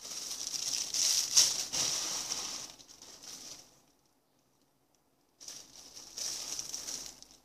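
Rustling and rattling of hands rummaging through a collection of squishy toys. It comes in two spells with a pause of about a second and a half between them.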